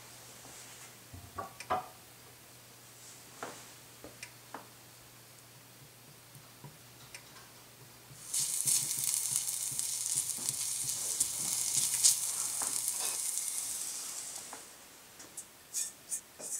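Minced garlic sizzling in a little hot oil in a stainless steel frying pan as a spatula stirs it. The sizzle starts suddenly about eight seconds in and dies away about six seconds later; before it there are only a few faint pops and taps, and near the end a run of sharp clicks from the spatula on the pan.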